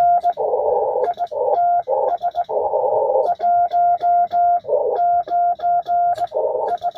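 Morse code from a ham radio on the 80 m band: a steady tone keyed on and off in quick dots and dashes, with hissy band noise filling the gaps between characters.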